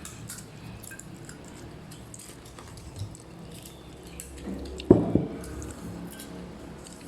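Quiet eating at a table: chewing and small wet and clicking sounds of food and dishes being handled, with two sharp knocks close together about five seconds in.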